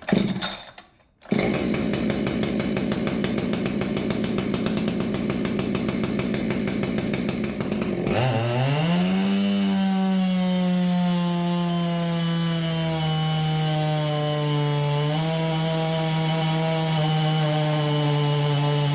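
Ported Husqvarna 564XP two-stroke chainsaw starting, about a second in, and running rough and uneven. About eight seconds in it revs up to a high, steady, screaming pitch and holds there with a brief dip near the end. The saw has opened lower ports, a base cut, a pop-up piston and an exhaust port raised 2 degrees.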